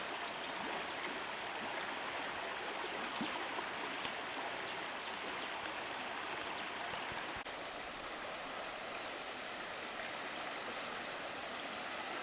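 Shallow river flowing over rocky riffles: a steady rush of water, shifting slightly in tone about seven and a half seconds in.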